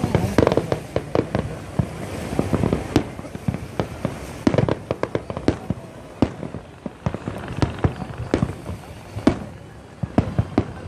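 Fireworks display: a rapid, irregular run of sharp bangs and pops from exploding shells, several a second throughout.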